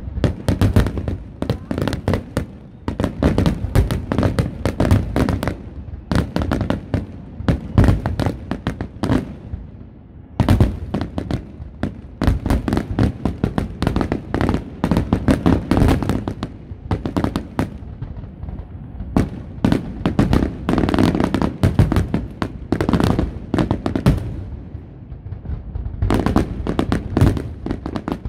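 Aerial fireworks display overhead: a dense barrage of shell bursts, many sharp bangs in quick succession. The barrage eases briefly about ten seconds in and again near the end.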